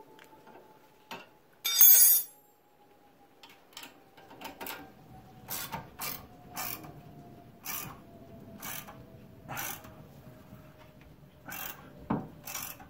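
Hand ratchet wrench turning the nut on a homemade bolt-and-socket press to push the compliance bushing out of a Honda Accord's front control arm. A loud burst of rapid pawl clicking comes about two seconds in, then single clicks about once a second as the handle is worked.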